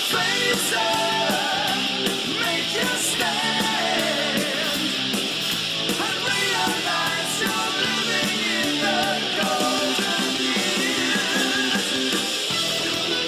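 Background rock music with guitar and a melodic lead line.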